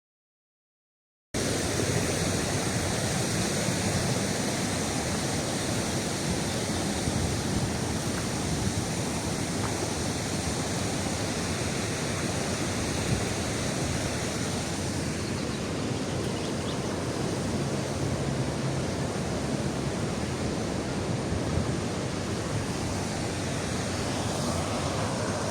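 Steady rushing of a waterfall, water pouring and churning with no let-up, starting after about a second of silence.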